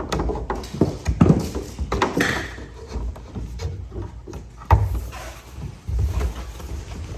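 Irregular knocking and clattering of hard objects being handled and set down, a dozen or so sharp knocks spread unevenly over several seconds.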